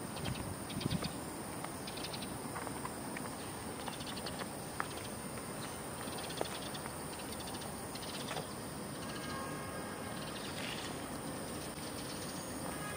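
Outdoor garden ambience: faint insect chirping and a few short bird calls over a steady background hiss, with scattered soft taps.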